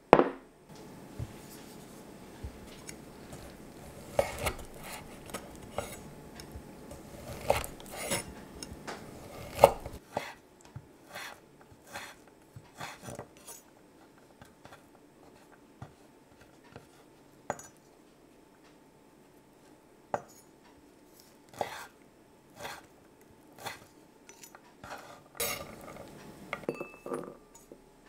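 A chef's knife chopping chorizo sausage on a bamboo cutting board: irregular knocks of the blade on the wood, closer together in the first third and sparser later. A ceramic bowl knocks once on the table right at the start.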